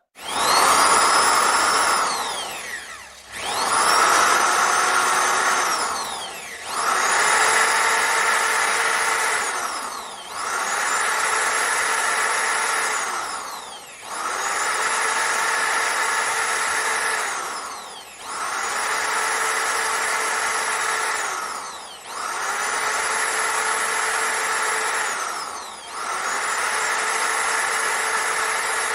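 Electric motor of a JLD 3301 5-inch polisher-drill switched on and off over and over, about eight times. Each time it whines up to speed, runs for a few seconds, and winds down before the next start.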